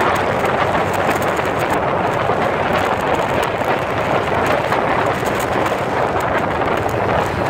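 Steady wind rush over the microphone of a cruiser motorcycle travelling at road speed, with the bike's engine running underneath.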